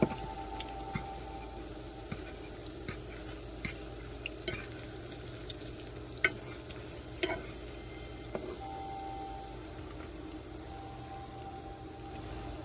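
Beaten eggs frying in oil in a pan, sizzling steadily with many small crackles. There are two sharper clicks a little past the middle.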